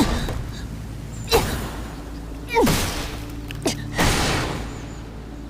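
Dramatic soundtrack effects: four sudden hits, each trailing off in a whoosh, over a low steady drone.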